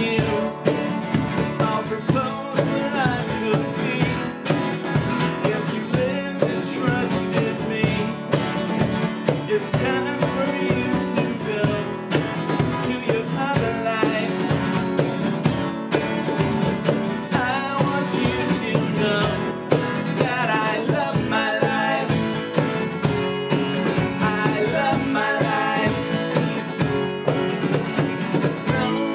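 Live acoustic band playing a country-rock song: strummed acoustic guitars over a steady hand-played cajon beat, with singing.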